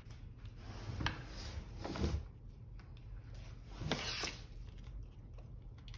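Handling noise from wires and a BMS board being moved about on a LiFePO4 battery cell pack: faint rubbing and rustling, with a few brief louder scrapes about one, two and four seconds in.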